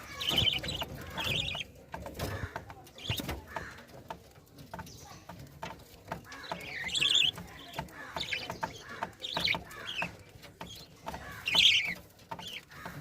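Lovebirds chirping and chattering in short high-pitched bursts, repeated every second or two, with scattered small clicks and scratches.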